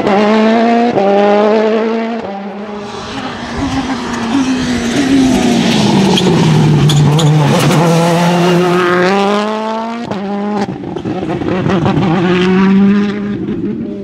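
Citroen C3 WRC rally car's 1.6-litre turbocharged four-cylinder engine revving hard, its note climbing and breaking at each quick gear change. Around the middle the pitch falls as the car slows for a corner, with a few sharp cracks, then it climbs again under full throttle.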